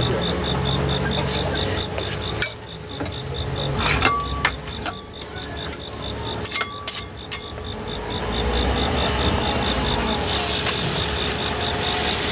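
Food sizzling as it fries, with utensils clacking against cookware in a few quick clusters near the middle.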